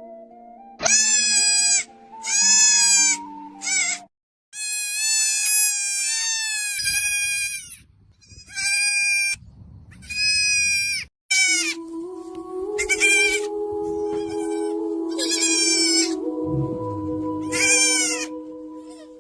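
A young goat kid bleating again and again, about ten high bleats with short gaps, one long drawn-out bleat in the middle, over background music with held notes.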